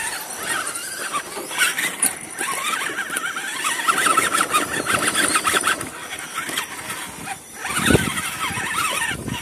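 Axial Wraith RC rock crawler's electric motor and gears whining as it climbs a dirt ledge, the whine rising and falling in pitch with the throttle. There is a short loud knock about eight seconds in.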